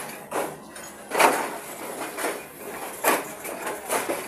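Coach of a moving passenger train rattling and clanking: a string of irregular sharp knocks, the loudest about a second in.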